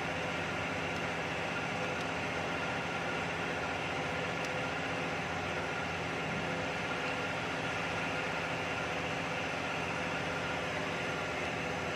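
Steady machine hum and hiss with several faint unchanging tones, like a fan or running motor.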